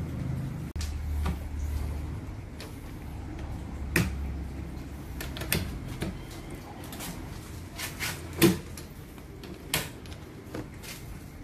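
A run of sharp knocks and clacks as the door of a snake enclosure is handled and slid, the loudest about eight and a half seconds in.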